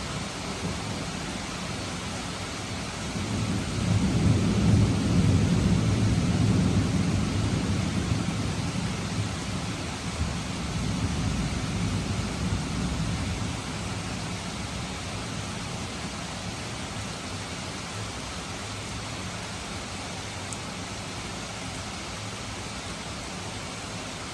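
Steady rain with a long low rumble of thunder that swells a few seconds in and rolls away by about halfway through.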